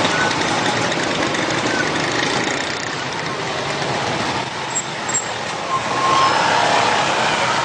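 Traffic noise of a jammed street: engines of a queue of stop-and-go cars running close by, a steady dense rumble.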